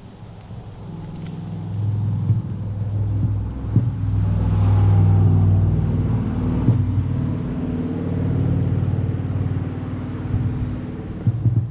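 A motor vehicle's engine passing by: a steady low hum that builds to its loudest about five seconds in and then slowly fades. A few small clicks sound along the way.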